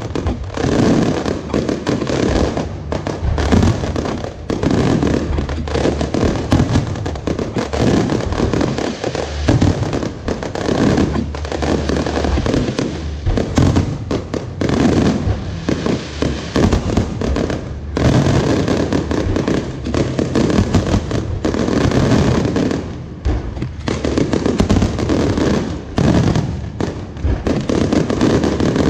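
Fireworks display going off in a dense, unbroken barrage of booms and crackles, the bangs overlapping with no pause.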